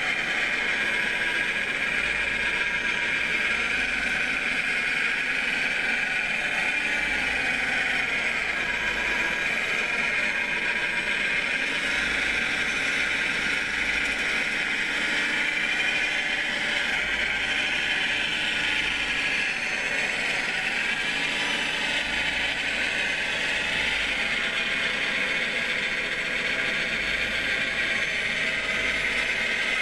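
Steady high whine of the electric motors of radio-controlled scale-model construction machines, chiefly a model Cat 966 wheel loader driving and working its bucket. The pitch shifts a little about two-thirds of the way through.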